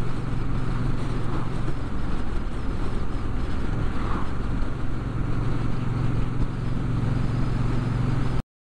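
Motorcycle engine running at a steady cruise, with wind and road noise at speed. A brief swell comes about four seconds in as an oncoming car passes. The sound cuts off suddenly just before the end.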